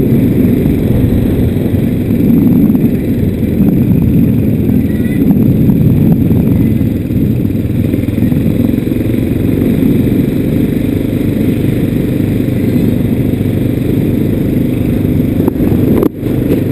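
Motorbike riding along a street, heard from a camera mounted on it: a loud, steady low rumble of engine and wind on the microphone, with a brief dip near the end.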